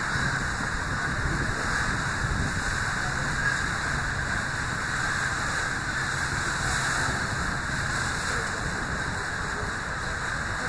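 Steady rush of wind and water on the open deck of a passenger boat under way, with the low steady drone of the boat's engine underneath.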